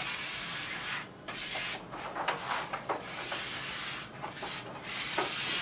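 Repeated rubbing strokes of a hand scraper smoothing an adhesive vinyl poster onto window glass, with the paper backing liner being peeled away, in several passes with short breaks between them.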